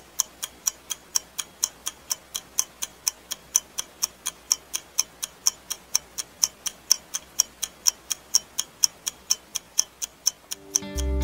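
A clock ticking steadily and fast, about three sharp ticks a second. Sustained soft music notes come in just before the end.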